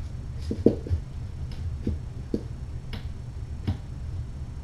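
About eight light, irregular clicks and taps, the loudest less than a second in, over a steady low hum.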